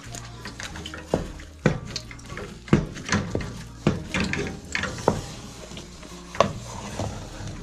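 A wooden cooking stick stirring and pressing stiff ugali (maize-flour porridge) in an aluminium saucepan, with an irregular knock against the pot about once a second as the dough is turned and mashed against the side.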